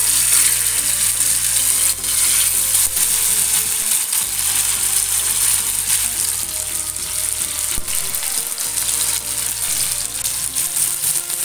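Marinated chicken leg pieces shallow-frying in hot oil on a tawa: a steady, dense sizzle and crackle that carries on as more pieces are laid into the oil.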